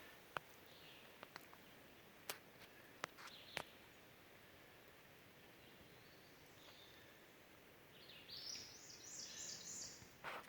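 Near silence with a few faint sharp clicks in the first few seconds, then a faint run of high, stepped bird notes near the end.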